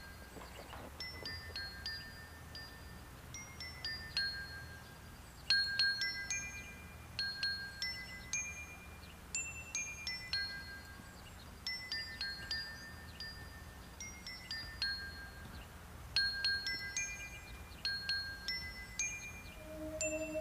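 Chimes tinkling: irregular clusters of short, high, ringing bell-like notes. A steady low tone comes in near the end.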